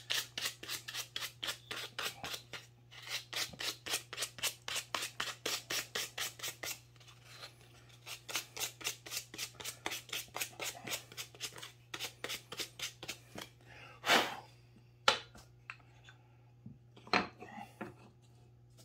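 Sandpaper rubbed by hand back and forth over the edges of a 3/4-inch pine puzzle piece, about four strokes a second with a short pause, softening the sharp edges. About 14 seconds in the sanding stops, and a few wooden knocks follow as the cut pieces are set down on the workbench.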